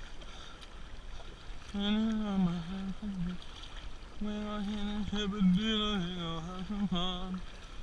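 A voice singing or humming in long held and gliding notes, in two phrases, over a steady low background wash.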